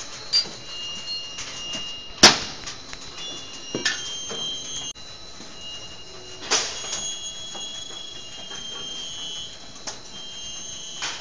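Rock wool sandwich panel production line running: a steady mechanical noise with high squealing tones, broken by a few sharp knocks, the loudest about two seconds in.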